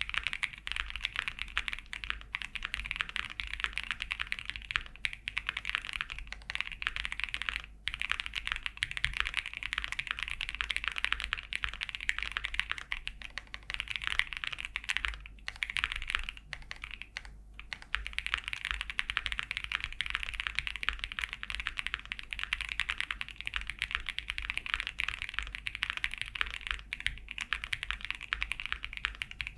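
ASUS ROG Azoth Extreme mechanical keyboard being typed on quickly: a steady stream of key presses, briefly pausing three times.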